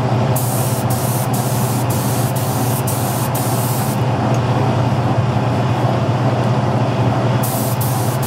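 Gravity-feed spray gun hissing in short bursts as the trigger is pulled, spraying gun coating through a stencil; the spraying pauses after about four seconds and starts again near the end. A steady low hum runs underneath.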